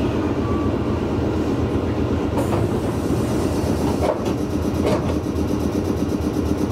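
Meitetsu 6800 series electric train running, a steady rumble of wheels on rail with a few sharp clicks about two and a half, four and five seconds in.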